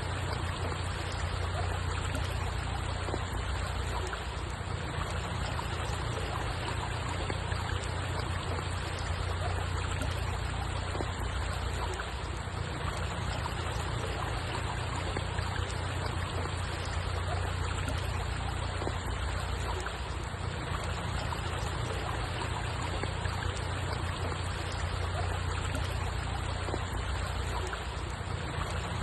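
Steady running water, an even wash of noise with a strong low rumble and no distinct events.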